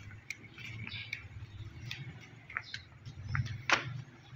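Faint scattered chirps and clicks over a low steady hum, with one sharp click about three and a half seconds in.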